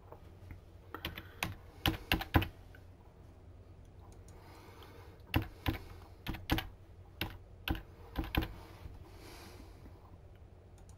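Typing on a computer keyboard: a short run of keystrokes about a second in, then a second run from about five seconds in until past eight seconds, as a username and then a password are entered.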